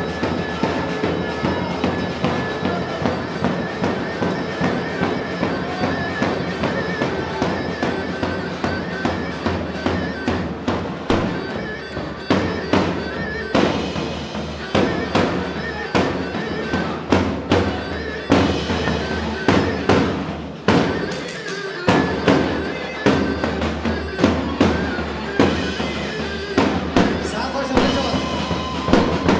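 Live halay dance music: a davul bass drum beaten hard in a steady, driving rhythm under a held wind-instrument-like melody, with the drum strokes growing heavier about halfway through.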